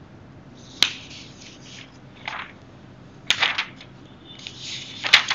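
Three sharp clicks: about a second in, just past three seconds, and near the end. Short rustling noises come with them and between them.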